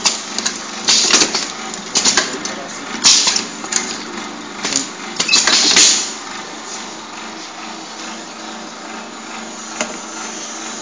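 Pneumatic juice bottle-filling machine running: air cylinders clack and vent short hisses of air several times in the first six seconds over a steady machine hum, which then carries on alone.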